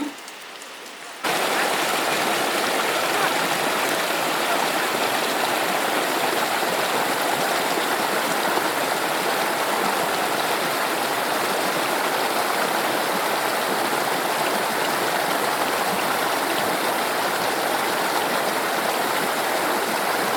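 Steady rush of a flowing stream, cutting in abruptly about a second in.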